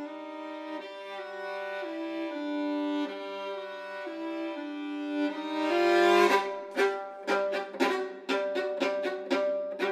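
Bowed string music: slow held notes moving step by step, then from about six seconds in a louder run of short, sharp, detached notes, about three a second.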